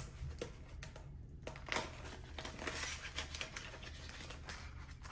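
Crinkling and rustling of a clear plastic cash envelope and paper banknotes as a bill is slid into the envelope's pocket, with many small irregular clicks and taps.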